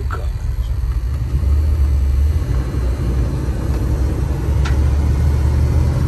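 Steady low rumble of a GMC motorhome under way, heard from inside the cab: engine and road noise, with a faint click near the end.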